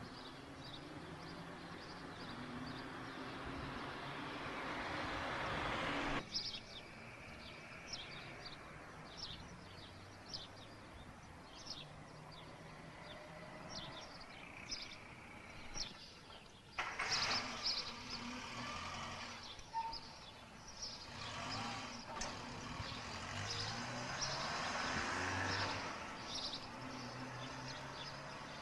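Street ambience of passing cars and birds chirping. A car's tyre and engine noise swells and cuts off suddenly about six seconds in, short bird chirps repeat through the middle, and another car passes in the last third.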